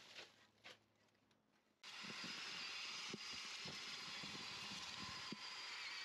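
Cordless drill spinning a compost auger through leafy compost in a plastic bin. It starts suddenly about two seconds in as a steady motor whine over the churning of the material, with low knocks. Before that there are soft rustles of compost being tipped in.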